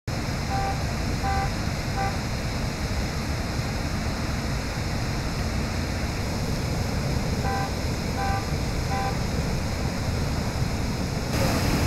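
Steady rushing of water jetting from a sheared fire hydrant as a tall geyser. Three short electronic beeps sound twice, the two sets about seven seconds apart.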